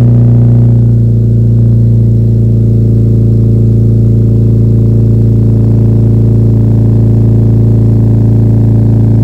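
Mazda sedan's engine idling steadily, heard close behind the exhaust.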